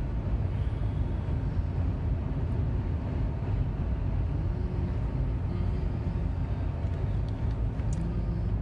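Steady low rumble of a car's engine and tyres on a snowy highway, heard from inside the cabin.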